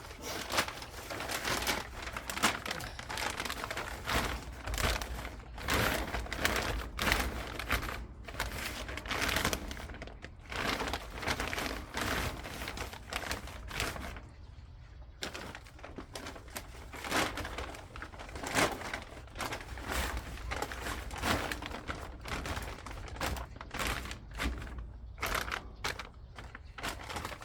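Irregular crunching and scraping of soil being dug and shifted to fill a wet patch at the edge of a garden bed, with many sharp crackly strokes and a short lull about halfway through.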